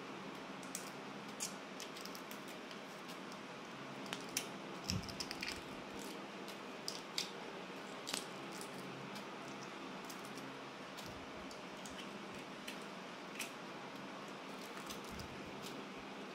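Fingers peeling the shell off a boiled balut duck egg: scattered small clicks and crackles of eggshell chipping away, busiest around the middle, over a faint steady hum.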